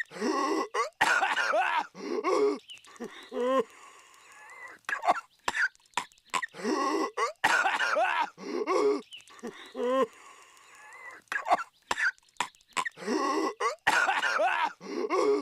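A cartoon character's exaggerated, voiced coughing fit: hacking coughs and throat-rasping with sharp catches between them. The same stretch of coughing repeats about every six and a half seconds as a loop.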